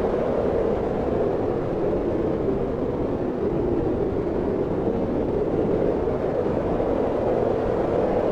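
Strong steady wind blowing, a dense low rushing noise that swells and eases slightly without gusting hard.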